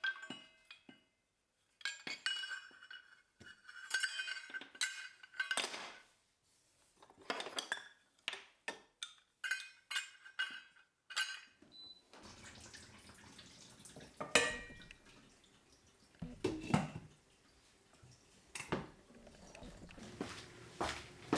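Crockery and cutlery clinking and clattering, with short ringing chinks in the first half and duller, sparser knocks after about twelve seconds.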